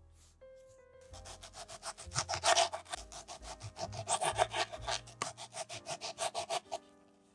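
Serrated knife sawing through a tomato on a wooden cutting board, in quick back-and-forth strokes of about six a second. The strokes start about a second in and stop near the end.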